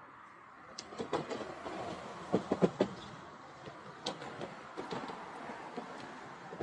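Road traffic passing on a bridge, with a run of irregular clunks and knocks that are loudest about two and a half seconds in.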